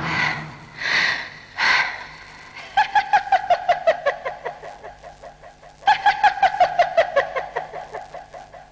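A woman's high-pitched cackling laugh: three short breathy sounds, then two long runs of fast ha-ha-ha that fall in pitch and fade away, the second starting about six seconds in.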